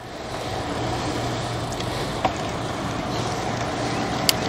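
Steady rush of wind and rolling noise from riding a bicycle, heard on a body-mounted microphone, with a faint steady hum underneath and two sharp clicks, one about halfway through and one near the end.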